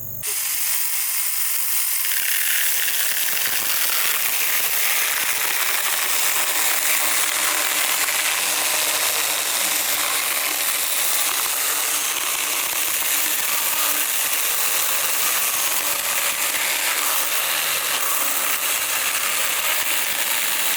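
Saker 6-inch cordless mini chainsaw cutting through a thick log: a steady, high chain-and-motor whine with a rasp. It starts abruptly just after the beginning and holds an even level, the cut going slowly through the wood.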